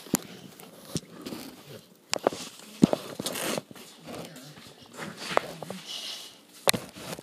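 A boxer dog chewing pieces of apple: irregular sharp crunches, roughly one every second or so, with wet mouth and licking sounds between them.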